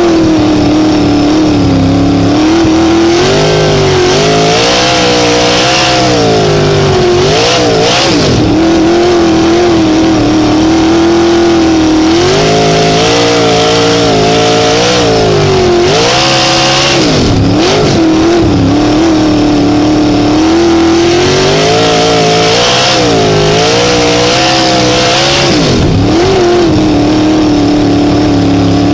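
Race car engine running hard, heard from the cockpit: a high, steady note that dips sharply and climbs back about every eight to nine seconds as the car lifts for the turns and gets back on the throttle.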